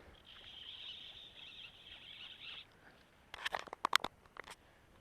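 Fly reel's clicker drag buzzing steadily for about two and a half seconds as a hooked trout takes line. About a second later comes a quick cluster of sharp clicks.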